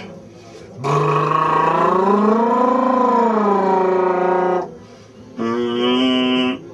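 A man's voice doing a vocal warm-up: a long held vowel that slides up in pitch and back down, then, after a short pause, a shorter held note at a steady pitch.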